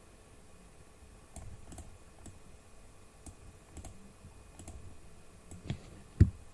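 Scattered clicks of a computer mouse and keyboard, about eight of them at irregular spacing, the loudest near the end.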